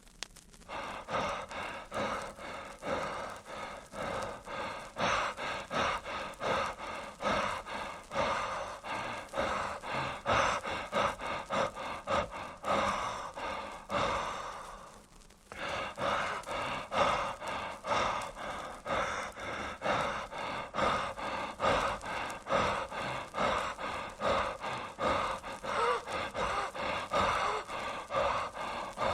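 Rapid, rhythmic gasping breaths in a voice, about one and a half a second, that stop for a moment around the middle and then go on at the same pace.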